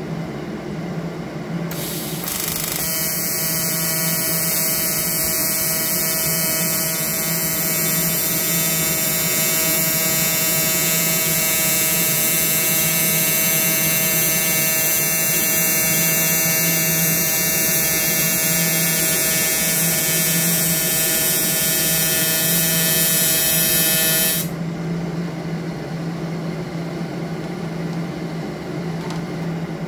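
TIG welding arc from an Everlast Typhoon 230 inverter welder, fusing the seams of a sheet-metal tilt/trim reservoir: a steady, high-pitched buzz that strikes about two seconds in and cuts off sharply after about 22 seconds. A steady low hum runs underneath throughout.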